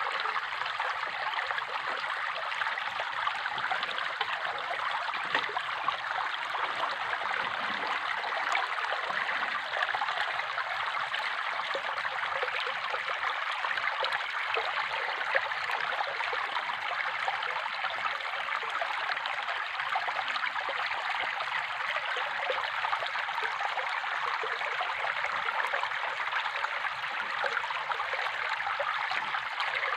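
Running water flowing and trickling steadily, an even splashing rush with no change over the whole stretch.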